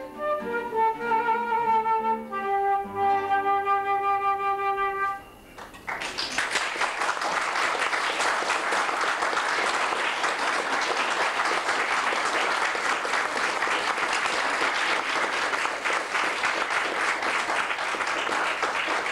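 A concert flute plays the closing phrase of a piece, ending on a held note about five seconds in. After a brief pause the audience breaks into steady applause that carries on to the end.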